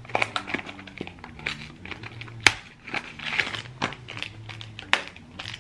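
Packaging crinkling and tearing as a blind-box pin is unwrapped by hand: a cardboard box and a black mystery pouch handled and pulled open, with irregular crackles and a few sharp snaps, the loudest about two and a half seconds in and just before five seconds.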